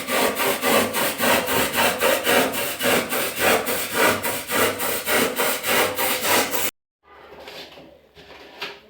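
Fast, even scraping strokes, about four a second, that cut off suddenly near the end.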